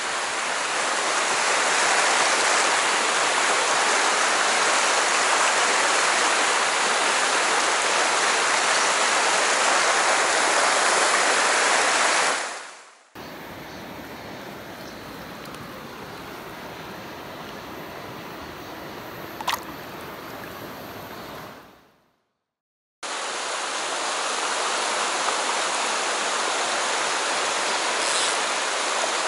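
Mountain stream rushing over rocks, a loud steady rush of rapids. About halfway through, the sound drops to a quieter stretch of flowing water with one brief high chirp. After a second of silence the loud rush of the riffles comes back.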